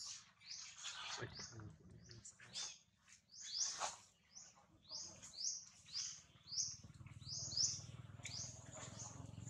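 A bird chirping over and over: short, high, falling chirps about two a second.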